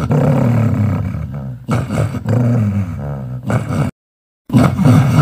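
Yellow Labrador-type dog growling with bared teeth in long, low, rough rumbles as a cat rubs against it. The growl breaks off completely for about half a second near the end, then resumes.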